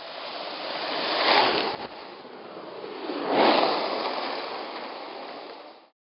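D Street vinyl cruiser skateboard rolling on rough asphalt, a steady wheel roar that swells loudly twice as the board passes close by, about a second and a half in and again about three and a half seconds in. It cuts off suddenly near the end.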